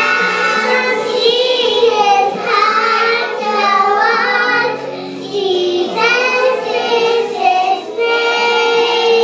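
Young girls singing a song together into a handheld microphone, with held notes that bend in pitch and only brief breaks between lines.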